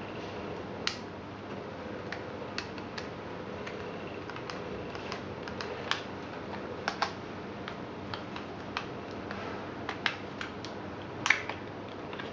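Irregular sharp plastic clicks and taps as a pair of replica Beats Studio over-ear headphones is handled, turned over and folded, the loudest click about eleven seconds in, over a steady background hiss.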